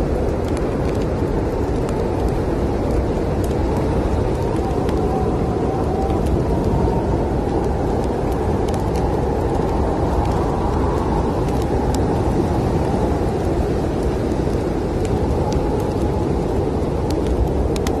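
Steady low wind of a snowstorm, with a wood fire crackling over it in scattered sharp pops.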